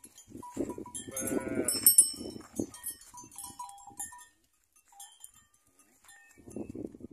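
A young calf bawls once, a short pitched call about a second in, among scuffling noises.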